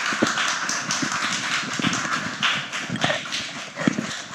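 Small audience applauding, a steady patter of many hands clapping.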